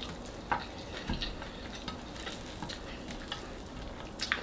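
Fingers pulling apart a whole fried golden pompano on a plate: scattered soft crackles and small clicks as the fried skin and flesh are broken away.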